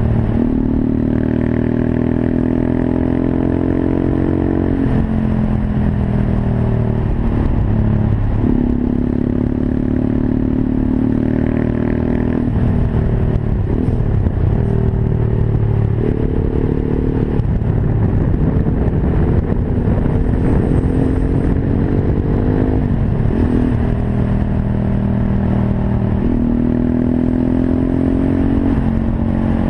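Monkey bike's small single-cylinder engine under way while ridden. The note repeatedly climbs for a few seconds under throttle, then drops back before climbing again.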